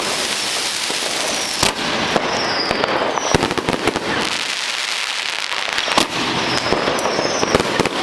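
Heavy fireworks going off: a dense, continuous crackle of small reports, broken by several louder sharp bangs, with a couple of short high falling whistles.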